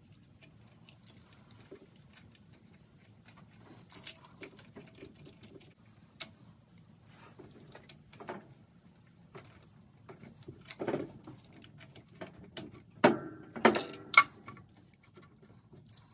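A ratchet and spark plug socket on a long extension clicking and clinking against metal as spark plugs are tightened into the engine. The clicks come in scattered bursts, with the loudest clanks near the end.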